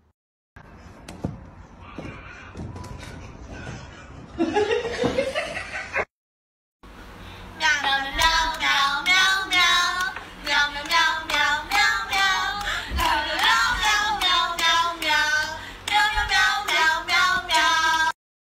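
Singing accompanied by steady, rhythmic handclaps, starting after a brief silence about seven seconds in and loud to the end; before it comes a quieter stretch of mixed sound.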